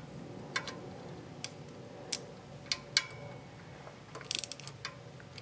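Ratchet wrench with a 10 mm socket loosening the lock nut on a Kohler V-twin's governor arm: single sharp clicks roughly once a second, then a quick run of clicks about four seconds in.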